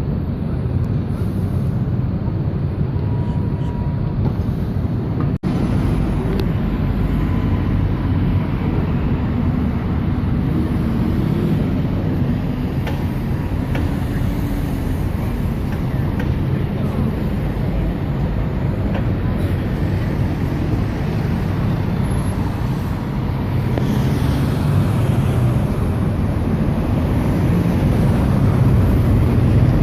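London buses and road traffic running past, with a steady low engine hum; a bus engine grows louder near the end. The sound briefly cuts out about five seconds in.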